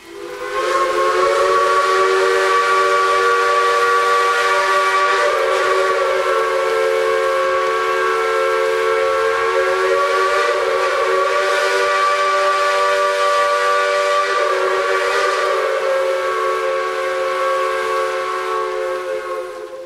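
Steam locomotive whistle sounding one long, steady chord of several notes, with a hiss of steam over it; it fades out near the end.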